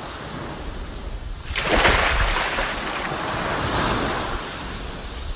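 Ocean surf: a steady wash of sea with one wave swelling and breaking about a second and a half in, then draining away.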